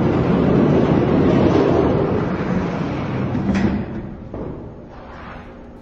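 Spin Master die-cast monster trucks rolling down orange plastic race track, a steady rolling rattle that builds and then fades over about four seconds, with two sharp clicks near the end.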